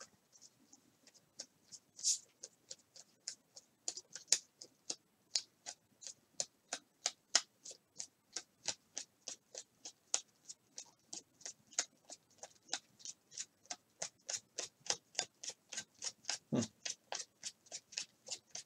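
Trading cards being flicked one by one through a pile, each card a light snap, about three a second and quickening toward the end. A soft thud comes near the end.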